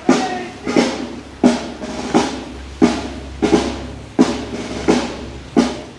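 Drum beaten at a steady marching pace, about three strokes every two seconds, each with a short ringing tail.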